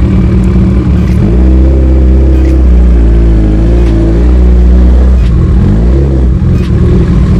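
Kawasaki ZX-14R's inline-four engine pulling at low revs while riding slowly. The note strengthens about a second in, wavers with the throttle, then the revs fall back toward idle around six seconds in.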